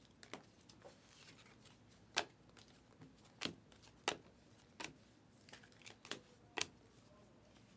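Trading cards being flipped through by hand: a string of short, faint snaps and clicks, about half a dozen, as cards slide off and tap against one another.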